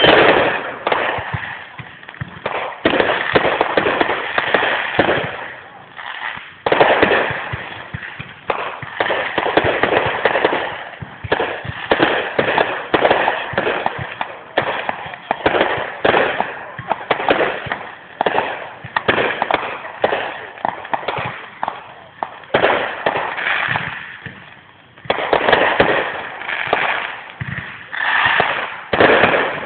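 Fireworks display: aerial shells bursting in a dense, rapid barrage of bangs and crackles, easing off briefly twice before picking up again.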